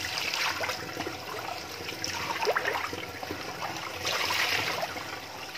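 Water from a garden hose running into a plastic basket of patin catfish as they are washed. Splashes of water come shortly after the start and again about four seconds in, with a few small knocks in between.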